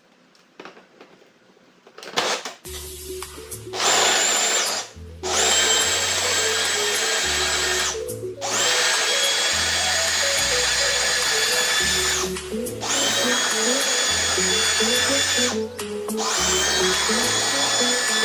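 Food processor blending hummus, chickpeas and tahini, its motor running with a steady high whine in several runs of a few seconds each, stopping briefly between them. Background music with a stepping bass line plays under it.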